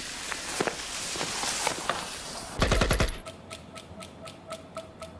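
Rifle gunfire: a rushing hiss, then a loud, deep blast about two and a half seconds in, followed by a steady string of sharper shots at about four a second over a faint steady tone.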